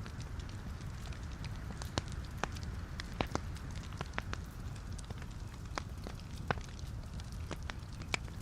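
Wood fire burning in a fireplace: logs crackling with irregular sharp pops over a steady low rumble of the flames.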